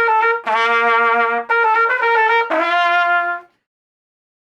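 Trumpet notes played as a comic stand-in for a snore: several held notes about a second each, the last one lower, stopping about three and a half seconds in.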